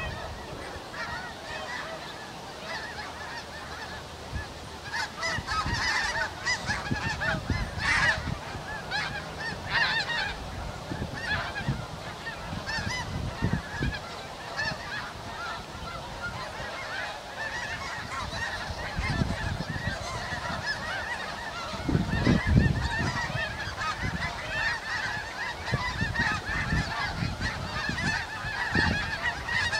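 A large flock of snow geese calling, many overlapping honks in an unbroken chatter. Brief low rumbles come and go underneath, the loudest about two-thirds of the way through.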